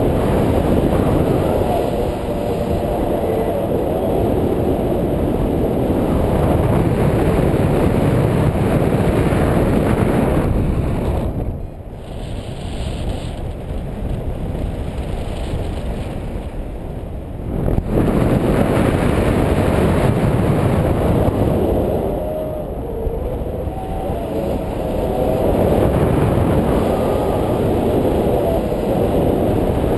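Wind rushing over the microphone of a pole-mounted camera on a paraglider in flight, a steady low rumble that eases for about six seconds midway before picking up again.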